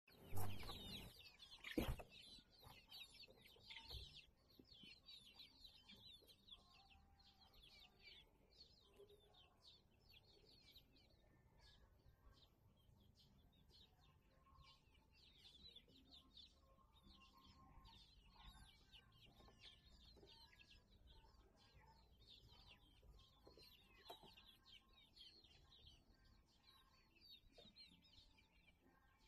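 A crowd of young chickens peeping faintly and continuously in a brooder, many short high chirps overlapping. A couple of sharp knocks sound in the first two seconds.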